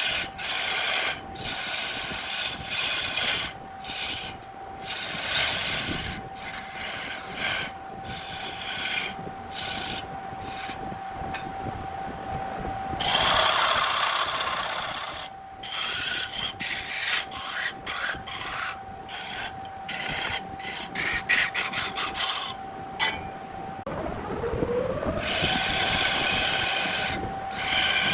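Wood lathe turning a burl log: a steady motor whine under the scraping and cutting of a turning tool on the spinning wood, in choppy stretches that stop and start abruptly. Near the end the whine drops and climbs back up in pitch as the lathe speeds up again.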